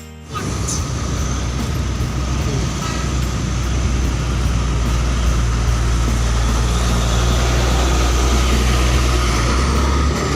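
Heavy bus engine running close with road noise, a deep rumble that grows louder over the first few seconds and then holds steady.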